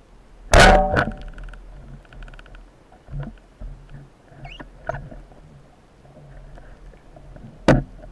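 Underwater knocks: a loud sharp knock with a brief ringing about half a second in, a second one just after, runs of fine clicking, a few softer knocks, and another sharp knock near the end.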